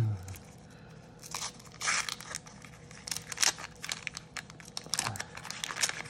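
Wax paper wrapper of a 1987 Topps baseball card pack being torn and peeled open by hand, crinkling and tearing in irregular bursts. A brief low vocal hum right at the start.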